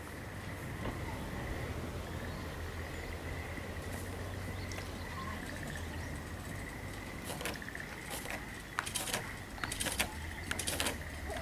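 Outdoor background with a constant high tone and a low rumble. From about seven seconds in comes a run of short rustles and crackles: movement in dry leaf litter.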